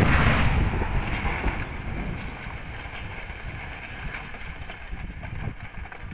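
Demolition charges blasting at the base of a tall factory chimney: a loud boom at the very start, then a long rumble that slowly fades as the chimney tips over.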